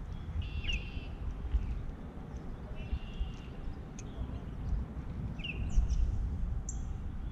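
A songbird calling from the pond edge: several short, high chirps a couple of seconds apart. Under them a steady low rumble.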